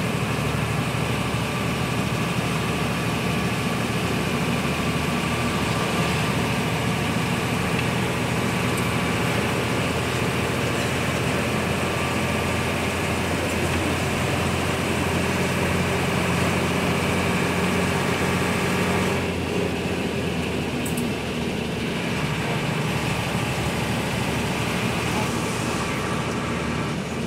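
Steady engine hum and road noise heard inside the cabin of a moving vehicle on a paved highway. The sound eases slightly about two-thirds of the way through.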